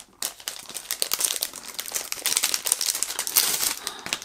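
Crinkly packaging rustling and crackling as a pack of board game player boards is unwrapped by hand.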